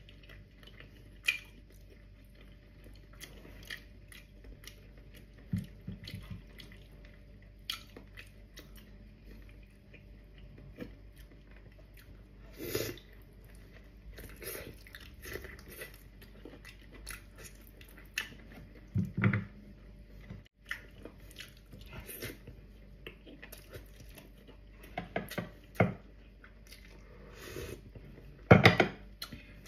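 Close-miked mouth sounds: chewing and biting into soft, gelatinous stewed beef foot, as short wet smacks and clicks. Near the end comes the loudest sound, a slurp of broth from a bowl.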